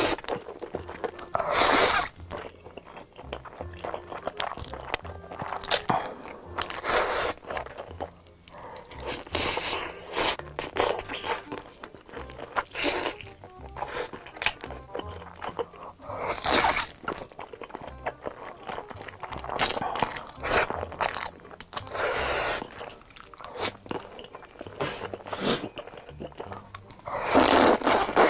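Close-miked eating: crunchy bites and chewing of sauced fried chicken coming in irregular loud bursts, and near the end a loud slurp of black-bean noodles.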